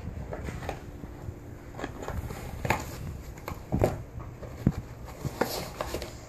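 A golden retriever chewing and tearing a cardboard frozen-pizza box: irregular crunches and ripping snaps of cardboard, the sharpest ones coming in the second half.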